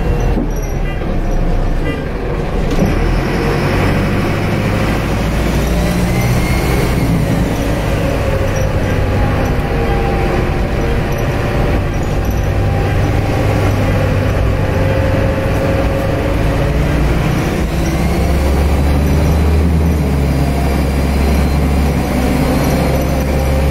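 Optare Solo bus's Mercedes turbodiesel engine and Allison automatic gearbox, heard from inside the saloon while driving: the engine pulls steadily with a turbo whistle that rises and falls in pitch, twice.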